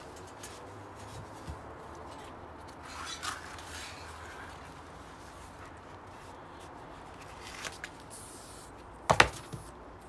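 Bicycle tyre being handled as it comes off an alloy rim: quiet rubbing of rubber on metal, a few small ticks, then one sharp knock about nine seconds in.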